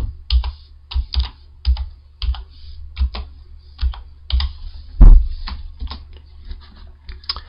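Typing on a computer keyboard: irregular, quick key clicks, with one louder, heavier thump about five seconds in.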